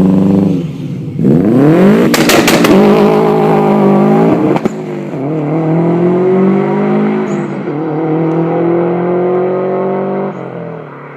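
Subaru Impreza GC8's 2-litre turbocharged boxer engine, through a custom exhaust with a metal cat, dropping off and then revving hard. A quick run of sharp bangs from the exhaust comes about two seconds in, and another about four and a half seconds in. After that the engine pulls steadily with slowly rising pitch, eases off near the end and fades.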